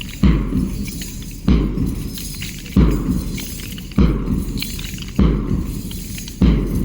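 Heavy impacts repeating steadily, one about every second and a quarter, each a low thud followed by a crackling, clattering tail.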